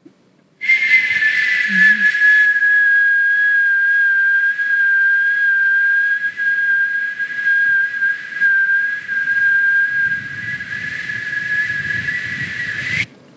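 A man's high, whistle-like tone made with the mouth, held steady for about twelve seconds. It starts a little higher and dips into a level pitch, with a faint second tone above it, then lifts briefly just before it stops abruptly.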